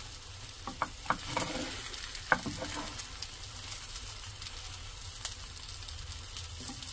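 Rolled Korean egg omelette sizzling in hot oil in a frying pan, a steady crackling hiss. Several sharp clicks and taps come in the first two and a half seconds, the loudest about two seconds in.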